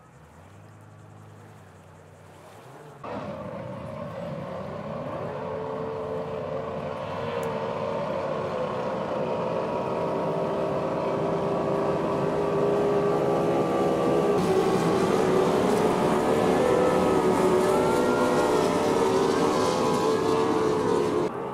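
Racing outboard motors of tunnel boats. A low steady hum comes first. About three seconds in, several engines come in at high revs, their pitches wavering against each other and growing steadily louder.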